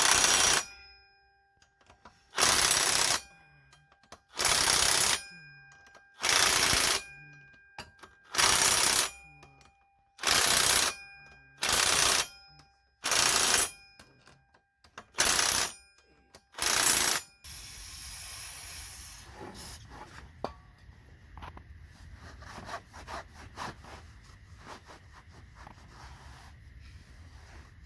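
Repeated short hissing bursts of pressurised spray, about ten, each under a second and roughly two seconds apart. After them come quieter light clicks and handling noises.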